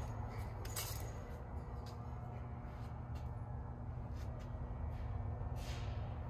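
Quiet workshop room tone: a steady low hum with scattered faint clicks and light metallic clinks.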